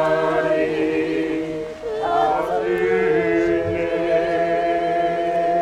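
A group of voices singing unaccompanied in long held notes with wavering pitch. A phrase ends and a new one begins about two seconds in.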